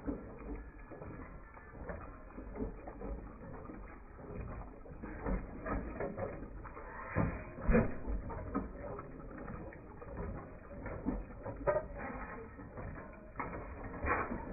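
Antique machinery running, with irregular mechanical clicking and clanking; the loudest knock comes about halfway through.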